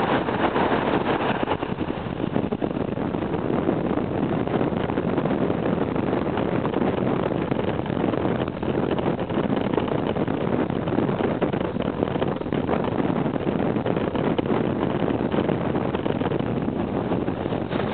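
Steady wind rushing over the microphone mixed with the drone of a motorcycle riding at road speed.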